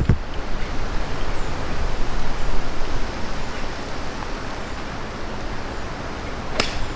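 Steady rushing of wind on the microphone outdoors. Near the end comes a single sharp click: a golf club striking the ball on a tee shot.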